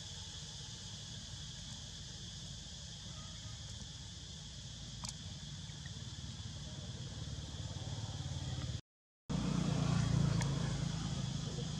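A steady, high insect drone over a continuous low rumble. The sound cuts out completely for about half a second three quarters of the way through, and the rumble is louder after it.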